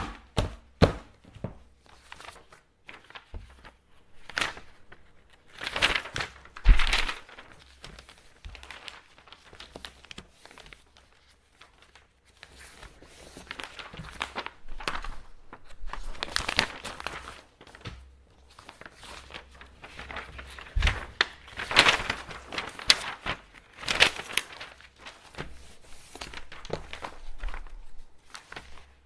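Sheets of paper being handled and folded: irregular crisp rustling and crinkling with sharp creasing clicks, loudest in bursts about six seconds in and again from about twenty-one seconds.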